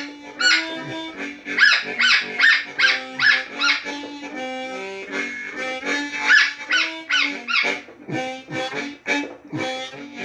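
Blues harmonica played on a 365 bass harp: low held notes and chords with sharp rhythmic accents, about two to three a second.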